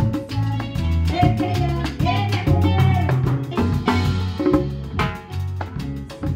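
A pair of congas played by hand in time with a salsa recording.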